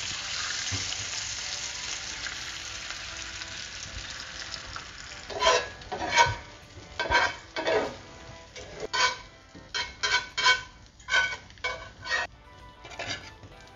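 Beaten eggs sizzling in hot coconut oil in a cast iron skillet, the steady hiss slowly dying down. From about five seconds in, a metal spatula scrapes across the pan again and again as the eggs are scrambled, each stroke a short ringing scrape.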